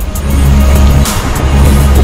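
Background electronic music with a heavy bass line and a steady beat.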